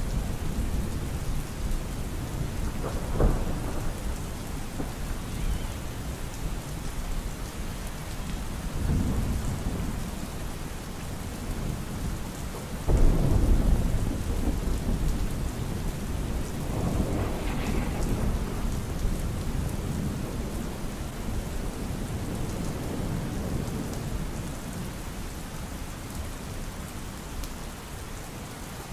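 Steady rain falling, with several rumbles of thunder. The loudest rumble starts suddenly about 13 seconds in; others come near 3, 9 and 17 seconds.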